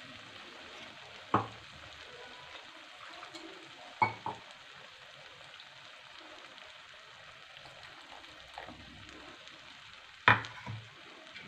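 Onion-tomato masala sizzling faintly in a non-stick kadhai under freshly added ground spinach puree. A few sharp clanks of utensils against the pan come through, the loudest about ten seconds in.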